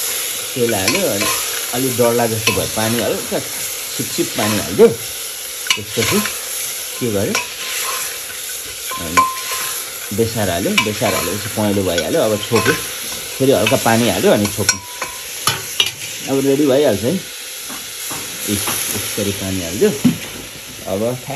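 Metal ladle stirring and scraping chicken around the bottom of an aluminium pressure-cooker pot, in runs of squeaky scraping strokes with short pauses, over a steady sizzle of frying.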